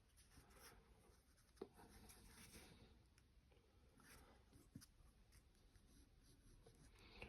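Near silence, with faint scratching and a couple of light ticks from a drawing compass marking off points around a circle.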